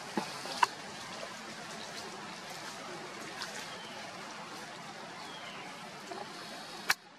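Steady outdoor hiss with a few sharp clicks, the loudest near the end, after which the sound drops quieter.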